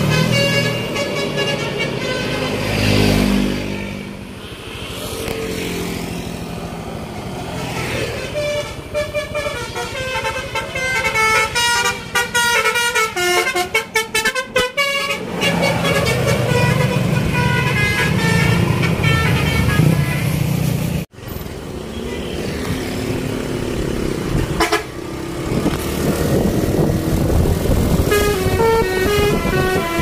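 Indonesian tour buses sounding 'telolet basuri' musical air horns: quick tunes of stepped notes, several runs of them, over the buses' diesel engines. In between, a bus engine runs low and steady as a bus passes.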